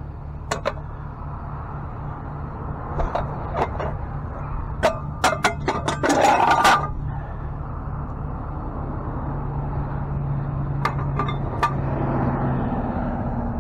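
Tow truck engine idling steadily, with a scatter of sharp clanks and knocks from equipment being handled and a short, loud rattle about six seconds in.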